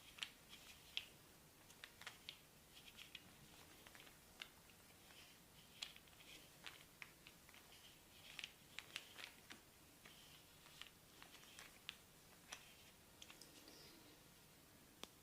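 Massage on a bare back: faint, irregular clicks and light taps of hands working on skin, with two sharper ticks in the first second.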